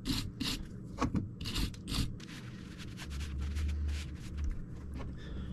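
A hand tool's metal tip scraping packed sawdust and grime out of a chainsaw guide bar's groove and oiler ports, in a run of short sharp scrapes. About three seconds in, a steady low hum takes over.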